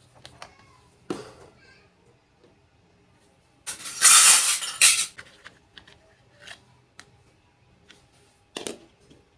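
Small pieces of a miniature steel toy kitchen set being handled, with light clicks and clinks of tiny pots, dishes and utensils. A louder hissy handling noise lasts about a second and a half near the middle.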